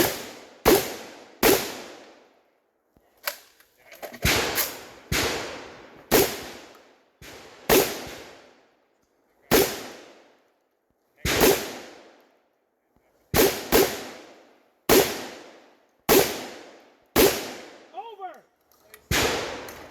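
Shotgun firing a run of about seventeen shots at an uneven pace, some in quick pairs and others a second or two apart, each shot followed by a short echoing tail.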